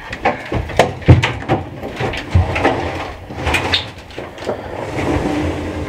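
Hurried footsteps and irregular knocks and thumps as a front door is opened and people rush out.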